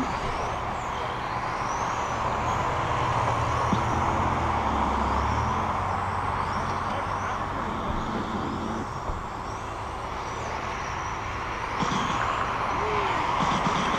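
Electric 1/10-scale RC touring cars racing on asphalt: short high whines from their brushless motors rise and fall again and again as the cars speed up and slow down, over a steady hiss. A low hum runs under it for the first five seconds or so.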